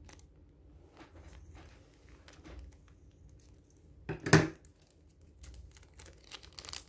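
A small blind-bag wrapper being cut open with scissors, then crinkled and torn by hand in short rustling strokes. There is one brief, louder knock about four seconds in, and the crinkling gets busier near the end.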